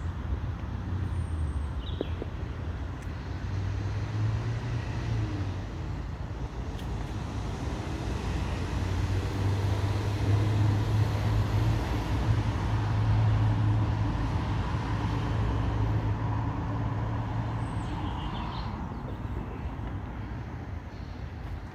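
Road traffic noise with a low engine hum, growing louder through the middle and fading toward the end as vehicles pass.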